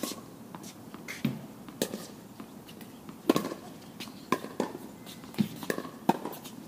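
Tennis balls being hit with rackets and bouncing on the court: about nine sharp pops at irregular spacing, roughly one every half second to a second.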